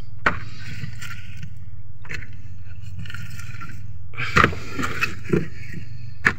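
Steady low hum of a small boat's engine running, with a few sharp knocks and scrapes from the fresh catch of fish being moved about in the boat's hold.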